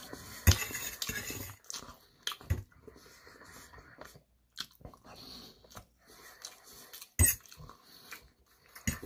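Chewing and mouth sounds of someone eating fried rice and tofu, broken by a few sharp clinks of a metal spoon against a metal plate.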